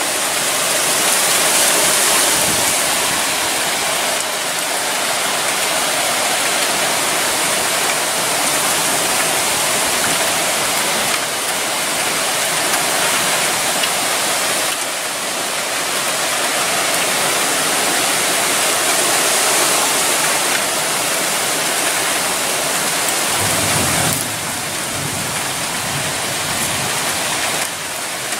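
Storm noise of strong gusting wind and heavy rain: a loud, steady rushing hiss that swells and eases with the gusts.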